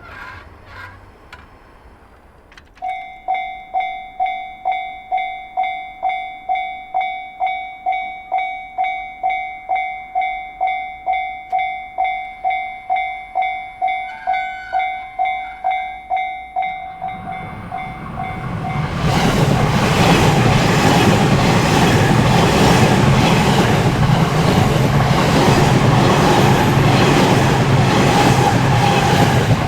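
Japanese railway level-crossing warning bell starting about three seconds in and ringing steadily at about two strikes a second. From about 17 seconds a train grows loud as it approaches and runs through the crossing, its wheels clicking over the rail joints and covering the bell until near the end.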